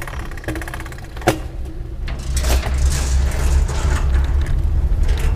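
Bicycle riding noise over a metal bridge deck: a steady low rumble of tyres and wind on the action camera, with one sharp clunk about a second in and the rumble getting louder about two seconds in.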